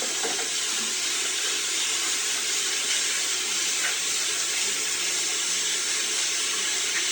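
A steady, even hiss that holds at one level throughout, brightest in the upper range.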